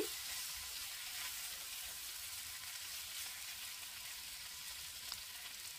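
Snake gourd and potato pieces in oil and ground spices sizzling quietly and steadily in a wok as they sauté on medium heat, with one small tick about five seconds in.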